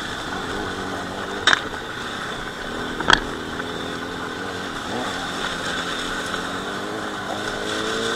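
Motorcycle engines running at low speed on a loose gravel track, the engine note steady, then rising as the throttle opens near the end. Two sharp knocks, the loudest sounds, come about a second and a half and about three seconds in.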